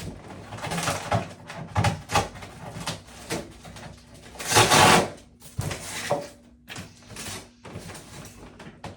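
Packaging being handled during unboxing: irregular rustles and scrapes, the loudest a long scrape about four and a half seconds in.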